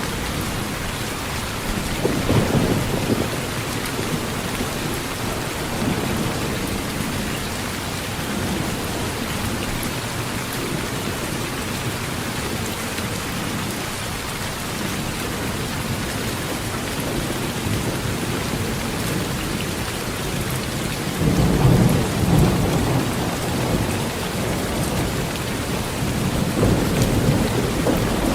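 Heavy rain falling steadily on a tin roof, with low thunder rumbling about two seconds in, again for a few seconds past the twenty-second mark, and near the end.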